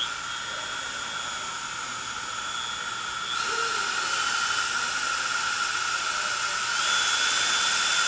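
Makita trim router's motor running at high speed: a steady high whine over a rushing hiss of cooling air. It gets louder in two steps, about three and seven seconds in, as its speed dial is turned up from setting three.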